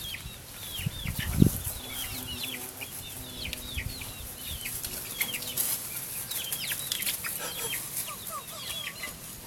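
Chickens peeping, a steady stream of many short, high calls that each drop in pitch, with one low thump about one and a half seconds in.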